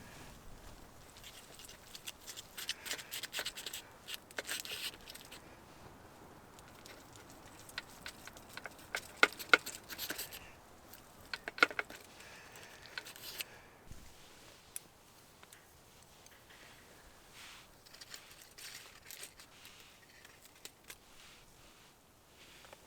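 Things being handled: irregular rustling and crinkling with sharp clicks, loudest in a few snaps in the middle.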